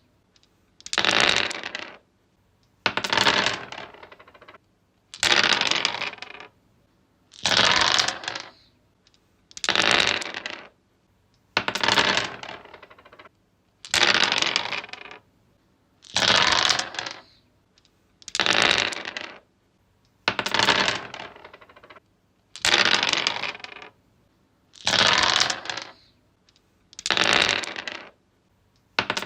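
Dice rolled across a wooden surface, again and again: each roll is a clattering burst of about a second that tapers off as the dice settle, repeating about every two seconds, thirteen times.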